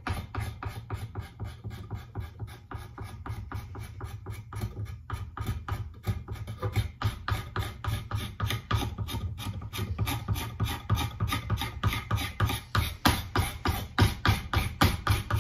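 Hand tool shaving wood from a hickory axe handle in rapid back-and-forth strokes, several a second, growing louder toward the end, as the handle is worked down to fit the axe head's eye. A low wind rumble sits under it on the microphone.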